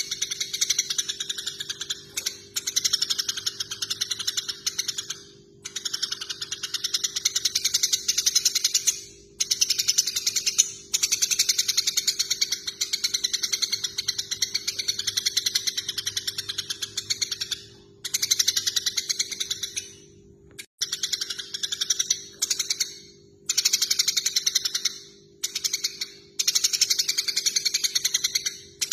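Eurasian tree sparrows chirping rapidly in long, fast runs of several seconds with short breaks, the excited chirping of sparrows fighting. A steady low hum runs beneath.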